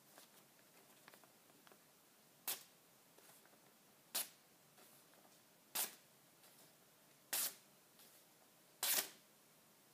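Sharpened, hand-forged small axe slicing through a sheet of newspaper: five short, crisp cuts about a second and a half apart. The clean slicing shows a keen edge.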